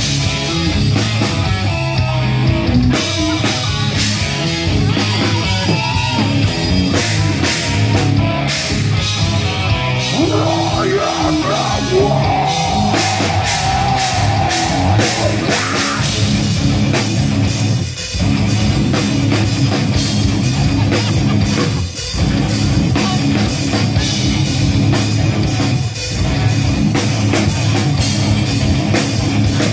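Live heavy metal band playing at full volume: distorted electric guitars, bass and a drum kit. In the second half the band cuts out for an instant about every four seconds.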